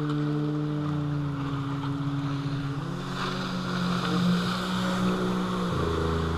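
Jet ski engine running at speed as it passes close by, its note sliding and shifting in pitch, over the rush of its spray and wake on the water.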